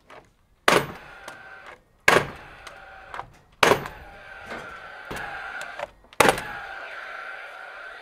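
Nail gun firing nails into roof-truss timbers: four sharp shots a second and a half to two and a half seconds apart, and another at the very end, each followed by about a second of steady whir.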